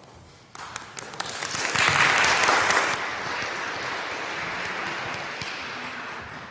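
A small congregation applauding: a few scattered claps at first, swelling to a full round of applause about two seconds in, then slowly tapering off.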